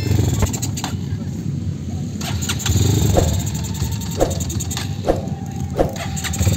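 Trail motorcycle engine being started and running, its note swelling and easing unevenly, with a few sharp clicks over it.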